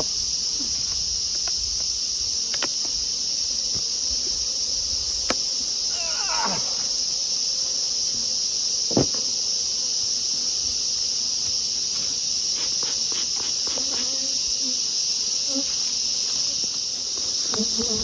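Steady, high-pitched chorus of insects singing in the surrounding bush, with a few sharp knocks as the wooden hive boxes are handled and honey bees buzzing around the opened hive.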